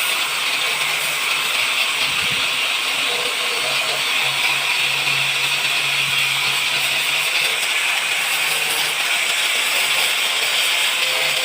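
Spray gun hissing steadily as it sprays lacquer finish, with a low hum that comes and goes.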